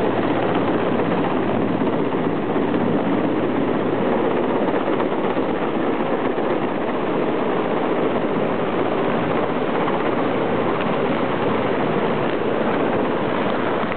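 Mil Mi-8-family twin-turbine transport helicopter flying low overhead: a loud, steady rush of rotor and turbine noise.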